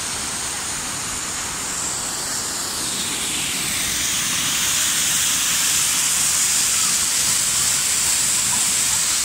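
Water rushing down a small stone cascade in a steady, hissing splash. It grows louder about three to four seconds in and holds there.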